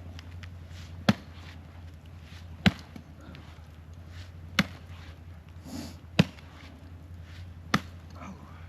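Axe chopping creek ice, five sharp strikes about a second and a half apart.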